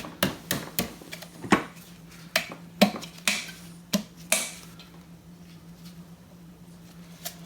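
A series of about ten sharp, irregular taps on a motorcycle cylinder barrel as it is tapped down over the pistons onto the crankcase, falling quiet after about four and a half seconds, with one light tick near the end.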